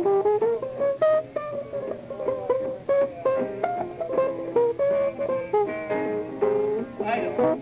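Jazz trio of guitar, double bass and piano playing live, with the guitar carrying a line of quick plucked notes.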